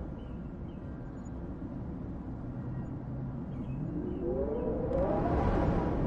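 Howling wind: a low rumbling blow with a howl that rises in pitch and swells louder over the last two seconds.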